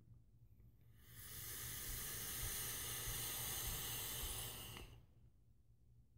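A long draw on an Anarchist V3 Comp mechanical vape mod with its fire button held down. The low-resistance coil (about 0.21–0.23 ohm) fires and air is pulled through the atomizer, making a steady hiss for about four seconds. The hiss starts about a second in and cuts off abruptly when the button is released.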